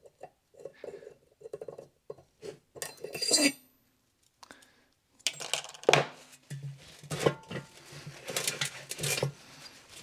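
Scattered metallic clinks and knocks as the steel drive-roller drum of a reel mower is handled on a workbench, with a brighter ringing clink about three seconds in, then rubbing and handling noise as its shaft is wiped with a rag.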